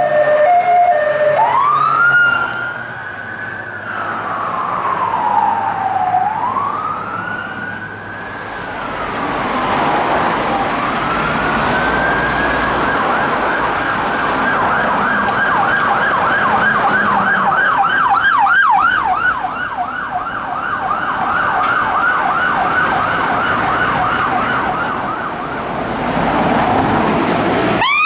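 UK police sirens: a slow wail rising and falling, then from about ten seconds in a fast yelp that runs on at a steady pitch range. Right at the end a new siren starts, rising.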